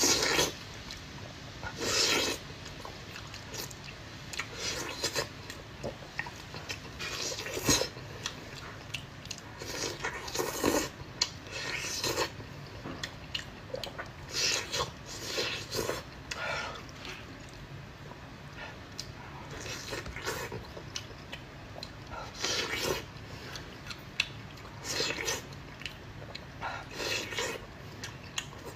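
Close-miked eating: a person biting, chewing and sucking on braised seafood tentacles, in irregular short bursts a second or two apart.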